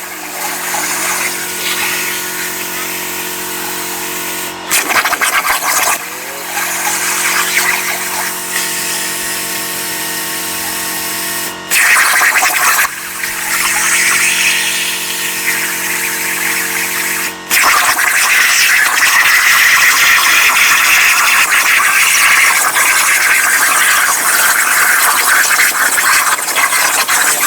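CNC plasma cutter with torch height control, cutting: a loud steady hiss with a steady hum of tones. It cuts out briefly three times and starts again each time. After the third break it continues as a rougher, louder hiss without the tones.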